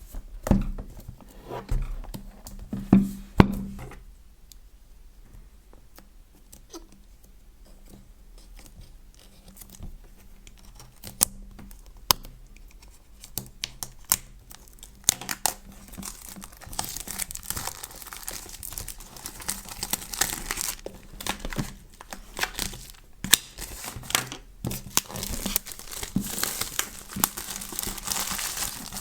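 Keyboard packaging being opened by hand: a few knocks of handling in the first seconds, then, from about halfway, steady crinkling and tearing of the wrapping.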